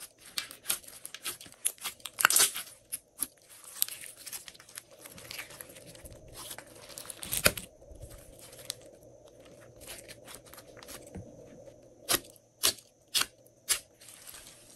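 Glossy slime being squeezed, folded and stretched by hand, giving sticky crackles and sharp air-bubble pops. Near the end, as the slime is pressed flat, come about five loud separate pops.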